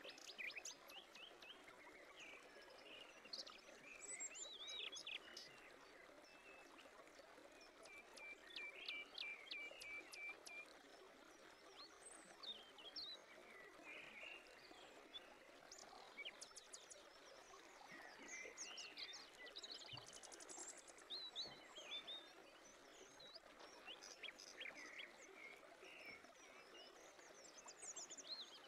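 Faint birdsong: many short chirps, glides and a quick trill from several birds, over a steady soft hiss.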